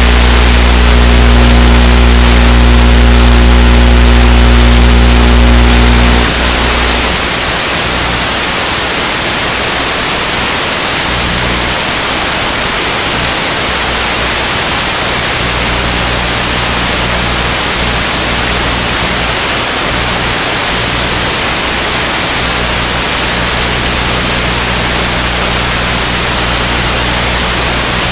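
Loud, steady static hiss from an analog FPV video link's audio channel. A low hum sits under it for about the first six seconds, then cuts out and the level drops a little.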